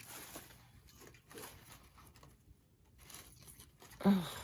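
Soft rustling and shuffling of paper and craft supplies moved about on a work table, in three short spells, then a brief voiced sound from a person near the end.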